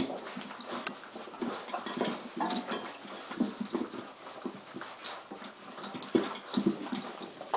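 A litter of red-and-white setter puppies eating together from a shared metal pan: a busy, irregular patter of clicks, scrapes and lapping from mouths, paws and the pan, with a few short whimpers.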